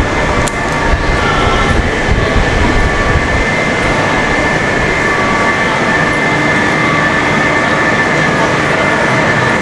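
Train running past, its low rumble dropping away about three and a half seconds in, leaving steady high tones over the noise of the tracks.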